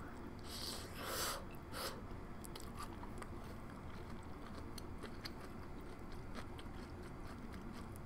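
A person chewing a mouthful of Korean corn cheese close to the microphone, with a couple of louder chews about a second in, then faint wet mouth clicks.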